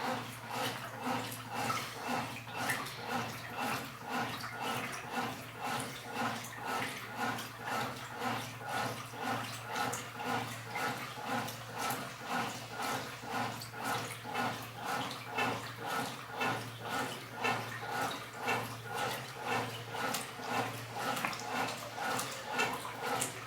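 Washing machine agitating clothes in water, the water sloshing back and forth in an even rhythm of about two strokes a second over a steady low hum.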